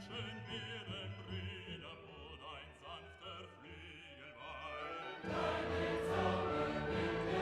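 Background music: a singing voice with wide vibrato over held accompaniment, swelling suddenly into a fuller, louder choral passage about five seconds in.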